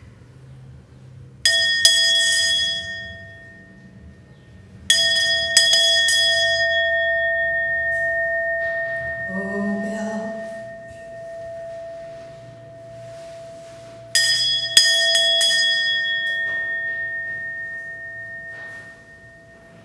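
Brass handbell rung three times. Each ringing starts with a few quick clapper strikes, then a clear high tone fades slowly over several seconds.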